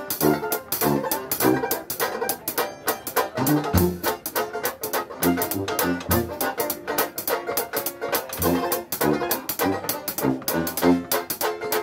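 Dixieland jazz band playing, with a bass line stepping under a steady beat.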